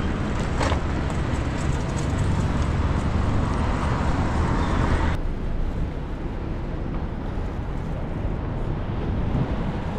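Town-street traffic noise with low wind rumble, heard while riding a bicycle; the hissing part cuts off abruptly about halfway through, leaving the rumble.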